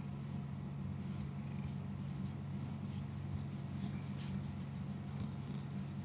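Tortoiseshell cat purring steadily while being stroked.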